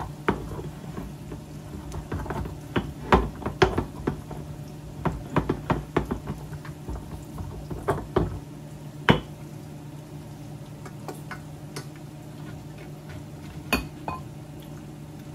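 Kitchen utensils clinking and knocking against dishes and a pan: a busy run of sharp clatters for about nine seconds, then only a few scattered clicks over a steady low hum.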